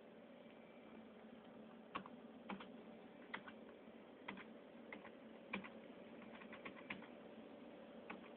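Faint, irregular keystrokes on a computer keyboard: a dozen or so clicks starting about two seconds in, some in quick runs, over a steady low hum.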